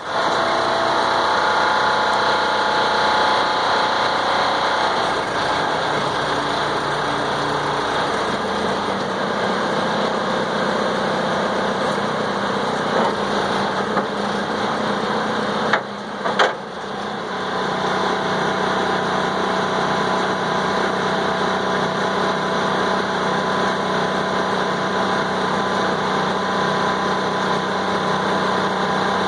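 Valmet 603S feller buncher's diesel engine running steadily as its hydraulics work the felling head, the engine note shifting a few times in the first several seconds. A few sharp knocks come through about halfway through.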